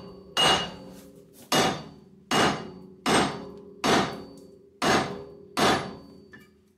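Copper hammer striking the front hub assembly of a Ford Transit seven times, about one blow every 0.8 s. The brake disc rings after each blow. The blows are meant to knock the seized hub and bearing free of the housing, and it does not come off.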